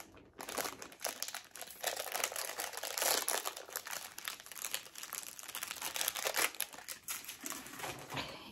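Blind-box toy packaging being torn open and crinkled by hand, an irregular crackling and rustling as the small figure is unwrapped.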